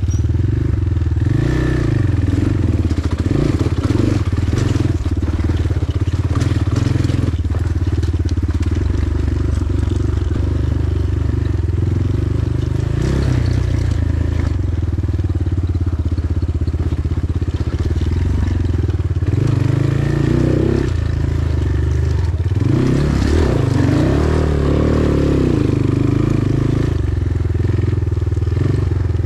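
Hengjian CB250 dirt bike's 250 cc single-cylinder four-stroke engine running under way at part throttle, its revs rising and falling several times in the second half as the throttle is worked. A few sharp knocks and rattles come through from the bike on rough ground.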